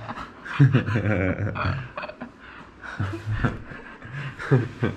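Indistinct voices talking in short bursts, with what sounds like light chuckling.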